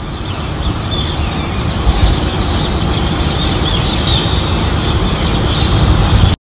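Steady low outdoor rumble of the city below, with birds chirping over it throughout; the sound cuts off abruptly near the end.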